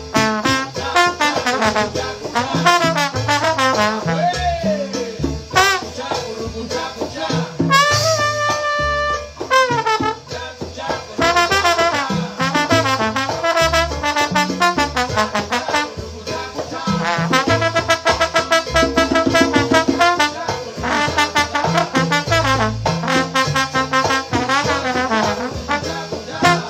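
Trombone playing an improvised solo over a Latin band, with quick runs, pitch slides and stretches of rapid repeated notes. Bass and percussion keep a steady rhythm underneath.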